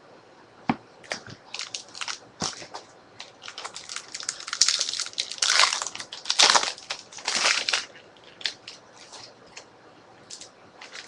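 Trading cards and their wrappers being handled: scattered taps and clicks, with a stretch of louder crinkling and rustling from about four to eight seconds in.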